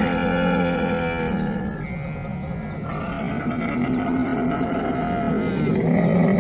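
Camel calling: a long, loud, low-pitched rough bellow that eases off about two seconds in and swells again near the end.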